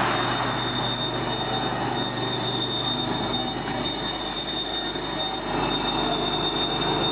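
Vacuum pump on a 100 L vacuum emulsifying mixer running steadily, pulling a vacuum on the mixing tank: a continuous machine noise with a thin, high, steady whine.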